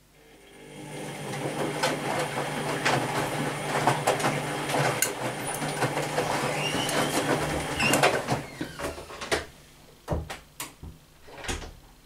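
Whirlpool Primo 1406 UM front-loading washing machine turning its drum during a no-spin rinse: a motor hum with wet laundry and water sloshing and tumbling. It starts a moment in and runs about eight seconds, then stops, followed by a few separate knocks near the end.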